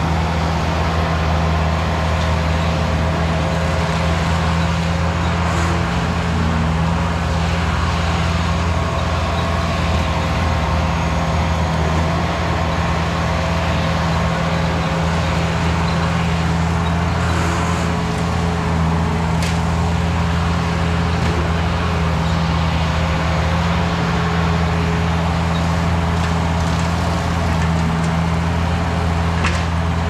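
Bobcat 873 skid steer's diesel engine running steadily, driving a quick-attach EZ Mow 72-inch brush cutter as it mows grass and undergrowth. A steady drone at an even level, with a few faint ticks from the cutting.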